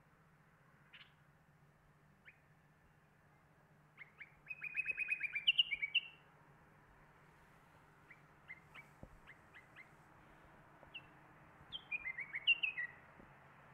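Caged songbird calling: scattered sharp chirps, a quick trill of about ten notes about four and a half seconds in running into short whistled notes, then more single chirps and another run of chirps and whistles near the end.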